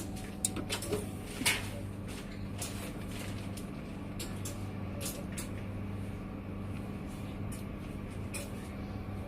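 Semi-automatic biochemistry analyzer just switched on: a steady low hum, with a few light clicks and knocks in the first second and a half and faint scattered ticks after.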